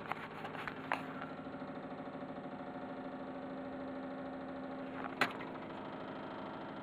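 Steady droning hum with several tones held over one another and a fast, even pulsing, from an unexplained vibration that is shaking the room and its furniture. No appliance is running; the person recording takes it for something slanted shifting slightly, rubbing and bouncing as it resonates. A few sharp knocks break in, the loudest about five seconds in.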